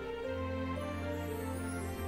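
Soft, slow background music with held chords and a low bass note that shifts to a new chord about a quarter second in.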